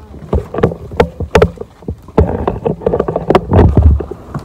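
Irregular knocks and clatter on the wooden deck of a floating fishing raft, about three a second, with a heavier low thump near the end.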